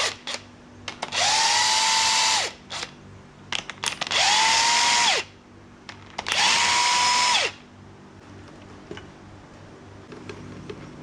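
A cordless power tool undoing the differential's bearing cap bolts, its motor spinning up three times for about a second and a half each. Each time the pitch rises and then holds steady. Light metallic clicks come between the runs.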